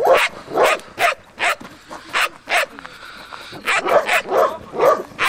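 A Doberman barking repeatedly in short, loud barks, about two a second, with a pause of about a second midway. It is aroused barking at a man who is teasing it in protection training.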